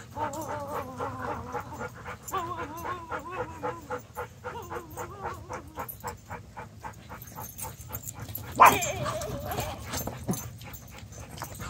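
Dogs at play: one dog whines in long wavering tones for the first five seconds or so, then a single loud, sharp bark about eight and a half seconds in.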